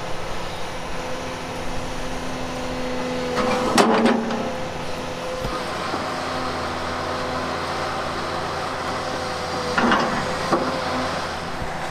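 Hyundai HX220AL excavator running steadily with the drone of its engine and hydraulics, broken twice by a short clattering scrape. The louder one comes about four seconds in as the steel bucket comes down onto the concrete, and another comes near ten seconds.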